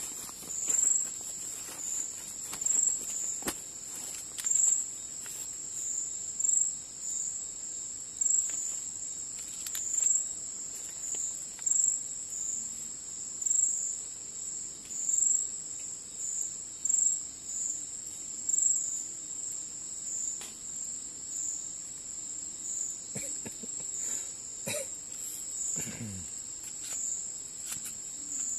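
Night insects chirping in a continuous high trill that swells and fades about every two seconds. Light paper rustling from a magazine being handled comes near the end.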